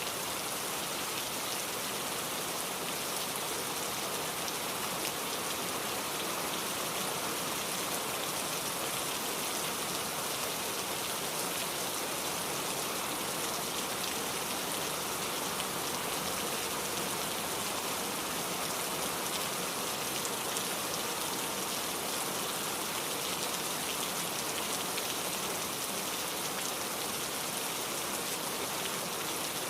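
Heavy rain falling steadily, a dense even hiss of countless drops pattering on a hard surface.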